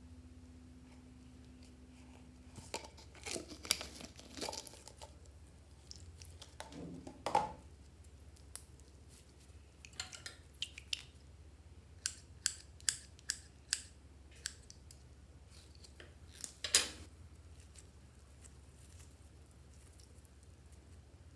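Irregular sticky clicks and crackles of glitter slime being squeezed and pulled by hand from a netted slime ball. There is a quick run of sharp clicks in the middle and the loudest crackle about three quarters of the way through.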